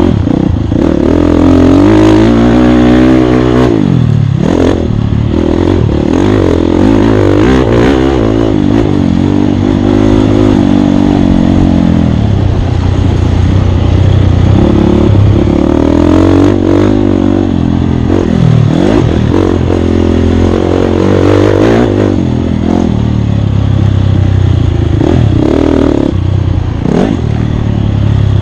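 Off-road dirt bike engine revving hard under changing throttle, its pitch repeatedly climbing and dropping every few seconds, with scattered knocks and rattles.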